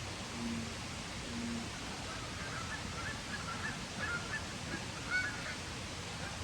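Birds calling: a run of short calls starting about two seconds in and lasting a few seconds, over a steady hiss.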